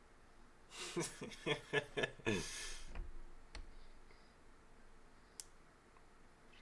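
Faint voice from the anime soundtrack: a character speaking in short, broken syllables about a second in, ending in a breath.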